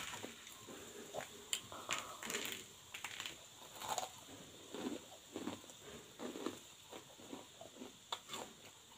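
Chewing crunchy bhujia (fried gram-flour noodles), an irregular run of crackles and crunches, with fingers picking through the pile on the plate.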